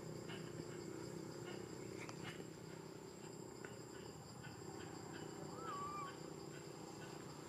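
Faint outdoor ambience: a steady high insect drone, with a few small ticks and one short wavering chirp a little past the middle.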